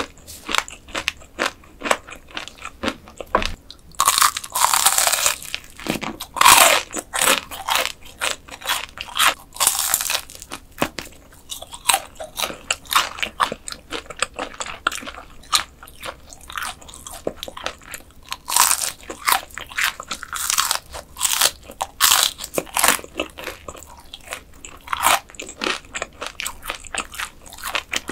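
Close-miked eating of mantis shrimp: repeated crunching bites and chewing, with sharp crackles coming thick and irregular.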